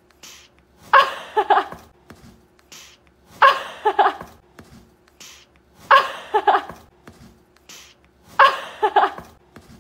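A short burst of voice, a few quick pitched syllables, repeated four times about every two and a half seconds, each time just after a brief hiss.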